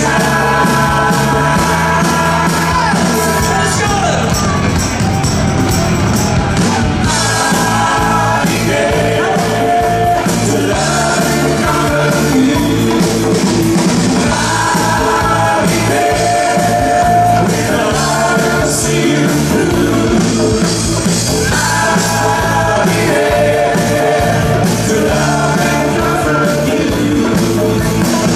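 Live rock band playing with lead and backing vocals over electric guitar, bass and drums, the singing coming in phrases of a few seconds.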